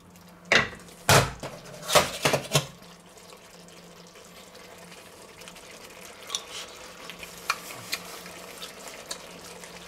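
A wooden spatula stirs and knocks against a nonstick frying pan several times in the first three seconds. Then a thick hunter's sauce simmers quietly in the pan, with a few soft pops as it reduces and thickens.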